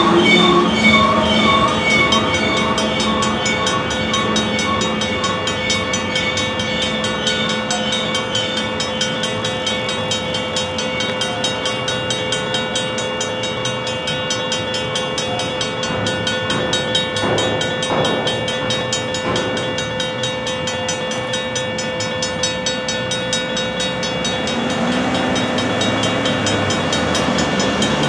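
Safetran Type 1 electronic crossing bell ringing steadily with rapid, even strokes while the last hopper cars of a freight train roll past over the rails. The bell keeps ringing after the train clears and stops near the end as the crossing deactivates and car traffic starts moving.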